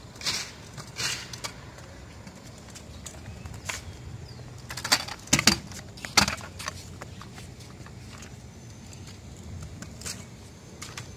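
Child's kick scooter on a concrete skatepark: several sharp clacks and knocks, with the loudest cluster about five to six seconds in.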